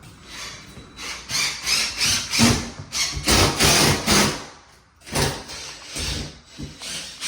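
Irregular rubbing and scraping strokes with some knocks, as of hand work on materials, coming in bunches with a brief lull about five seconds in.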